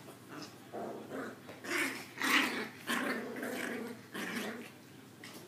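Maltese puppies growling as they play-fight, in a string of short, uneven bursts that start about a second in and die away near the end.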